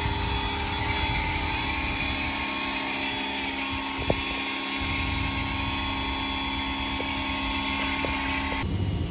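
Car-wash pressure washer running with a steady mechanical drone. There is a single click about four seconds in.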